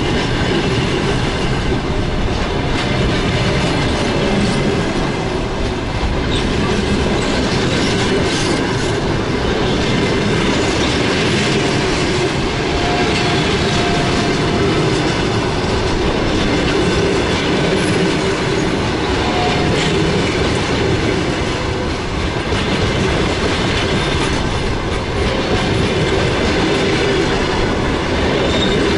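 Railway cars rolling past on the track, their wheels clattering over the rail joints in a steady, loud run.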